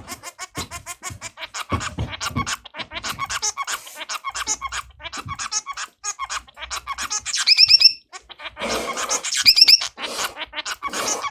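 Male Bengalese finch (society finch) courtship song: rapid runs of short, scratchy clicking notes mixed with buzzy notes, broken twice by a quick series of clear, high, rising notes about seven and nine and a half seconds in.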